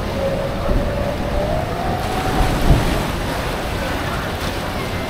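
Ride boat moving across shallow water: steady water churning and splashing around the hull, with wind buffeting the microphone.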